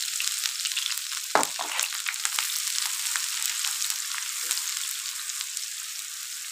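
Sliced onions sizzling in hot oil in a non-stick frying pan as they are stirred with a wooden spatula, with a few light knocks against the pan; the sizzle eases off slowly.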